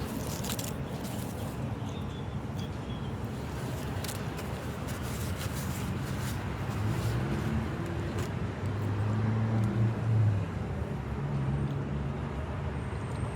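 Steady outdoor traffic noise with a car engine's low hum, loudest about nine to ten seconds in.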